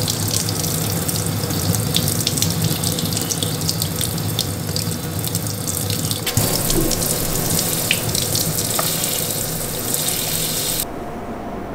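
Kitchen tap running, its stream splashing over a plastic ice-pop mould and into the sink to loosen the frozen ice pops from the mould. The steady rush of water stops abruptly about a second before the end.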